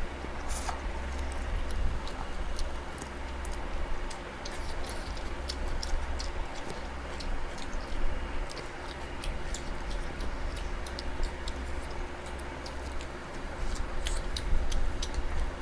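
Eating sounds: chewing and mouth smacks that come as many short, irregular clicks, a few a second, over a steady low hum.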